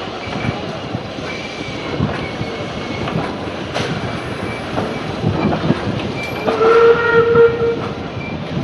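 A heritage steam train, heard from its carriage: a steady rushing noise with scattered knocks and clunks. About six and a half seconds in, a held tone sounds for roughly a second and a half.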